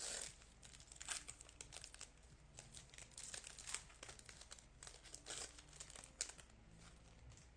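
Plastic-foil wrapper of a Topps baseball card pack crinkling as it is torn open and handled, in irregular spurts of crackle that thin out toward the end.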